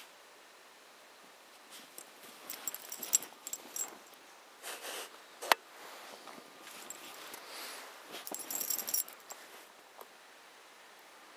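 A Keeshond snuffling and nosing about in snow, starting a couple of seconds in, with its metal harness and leash fittings jingling in short clinking bursts. One sharp click comes about halfway through.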